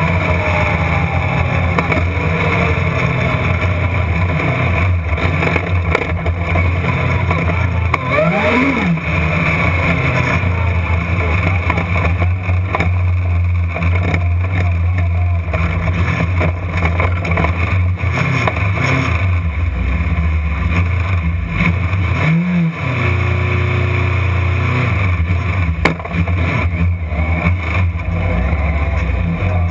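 Dirt-track race car engine heard from inside the cockpit, running loud and steady, with the pitch dropping and rising again twice as the throttle is lifted and reapplied.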